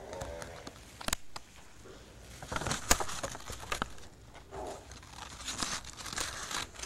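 Paper card rustling as it is handled, with a few sharp knocks, the loudest about three seconds in.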